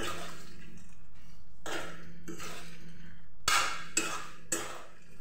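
A metal spatula scraping and knocking against a steel kadai as cooking fruit is stirred, in short strokes about a second apart, over a steady low hum.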